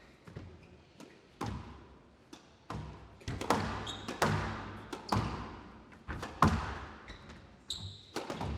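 A squash rally: the ball cracking off rackets and thudding against the court walls in an irregular run of sharp knocks, each ringing briefly in the hall, with two short squeaks of players' shoes on the court floor, about four seconds in and near the end.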